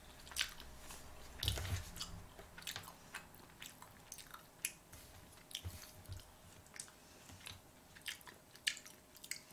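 Faint, close-miked sounds of a person chewing sushi: scattered small wet clicks and smacks at an irregular pace.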